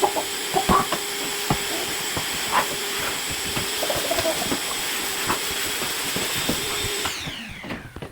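Vacuum cleaner running with a steady whine and rush of air, small clicks and knocks of debris being sucked up. About seven seconds in it is switched off and the motor winds down, its whine falling in pitch as it fades.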